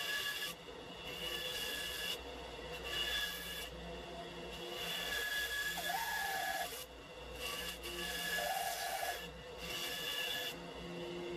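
Bandsaw cutting a block of 2x2 select pine, the blade's cutting sound starting and stopping in stretches of one to two seconds as the block is fed in and backed off along the curves of the profile.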